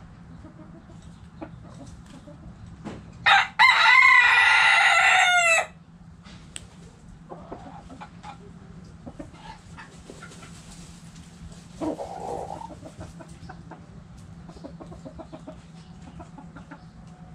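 A rooster crowing once, about three seconds in, a loud call of about two seconds that falls in pitch at the end. Around it, hens cluck softly now and then, with a short louder hen call near the twelve-second mark.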